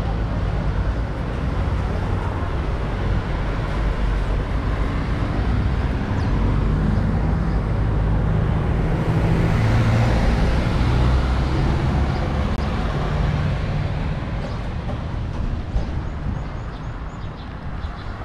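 City street traffic: a steady low rumble of motor vehicles, swelling as a vehicle passes about halfway through and easing off near the end.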